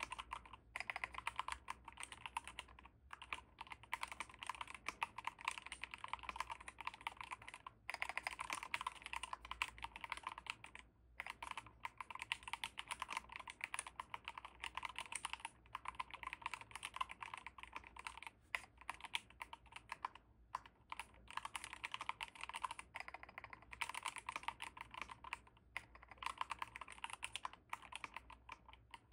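Fast, continuous typing on a DrunkDeer G75 rapid-trigger keyboard with magnetic linear switches: a dense stream of quick key clacks, broken by a few short pauses.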